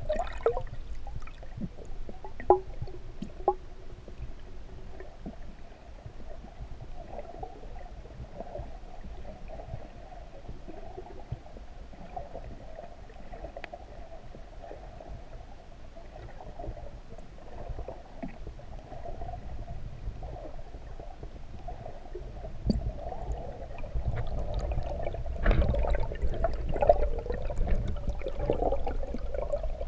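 Muffled underwater water noise heard through a camera's waterproof housing: a low, steady rumble with faint gurgling and a few light clicks a few seconds in, growing louder over the last several seconds.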